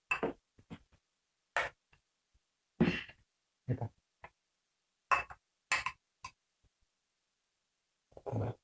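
Eating sounds at a table: a scatter of about ten short clicks and knocks, like spoons and dishes, mixed with fuller mouth noises such as slurping, with brief silences between.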